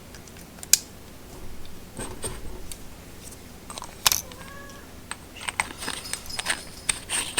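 AAA batteries being slipped into a small clear plastic battery carrier for a flashlight: scattered light clicks and taps of the cells against plastic. There is a brief squeak just after the middle, and a quicker run of clicks near the end.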